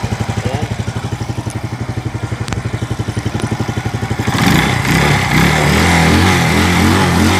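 Small motorcycle engine idling with an even, fast putter, then revved up about four seconds in and held at higher revs with the pitch wavering. It is running again, just kick-started after a no-start fault was traced to broken wiring.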